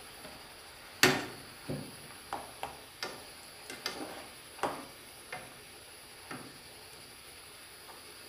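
A utensil knocking and clinking against an aluminium pot as chicken pieces frying in it are turned over: about ten irregular knocks over the first six seconds, the loudest about a second in, then only a faint steady sizzle of the frying chicken.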